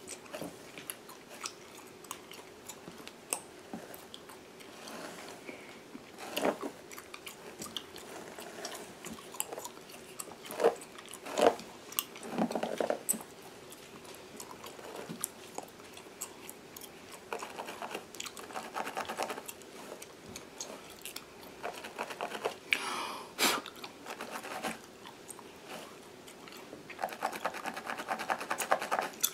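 Gum chewing with wet smacks, close to the microphone, over fingernails scratching and picking at a mannequin head's scalp through its hair. There are spells of rapid fine scratching, once near the middle and again near the end.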